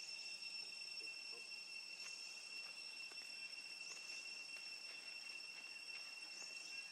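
Steady, high-pitched insect drone holding one unbroken tone, with a few faint short rising chirps over it.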